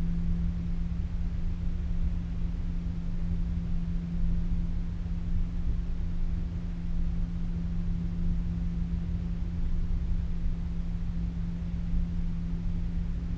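Cable car cabin travelling along its cables, heard from inside: a steady low hum with a low rumble underneath, unchanging throughout.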